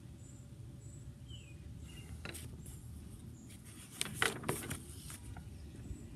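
Pages of a paperback picture book being handled and turned: a brief paper rustle about two seconds in, then a louder cluster of crinkles and rustles around four seconds, over a faint steady low hum.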